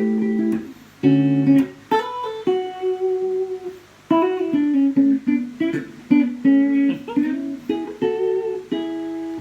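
Rebuilt Telecaster electric guitar played through an amplifier: a couple of strummed chords, then a melodic lick of picked single notes and short phrases.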